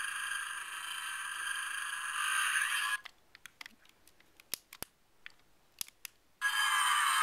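Clu Deluxe Light Cycle toy playing its electronic light-cycle sound effects in try-me mode through its small built-in speaker. The thin effect lasts about three seconds and cuts off suddenly. A few clicks follow as the toy is pressed and handled, then another effect starts near the end with falling pitches.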